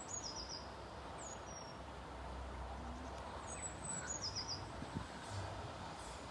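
A small songbird singing a short repeated phrase, a high chirp followed by a quick run of lower notes, heard twice, over a steady outdoor hiss with a faint low rumble underneath.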